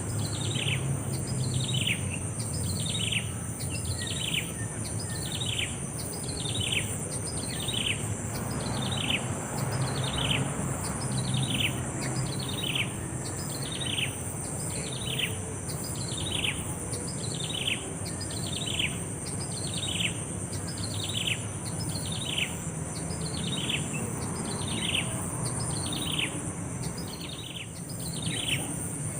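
A bird calling in a long, very regular series of short down-slurred notes, about one a second, over a steady high hiss.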